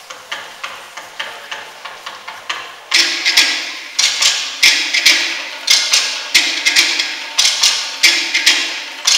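Polynesian wooden percussion, such as log or slit drums, beating a rapid, driving rhythm of sharp wooden strikes. It becomes much louder and fuller about three seconds in.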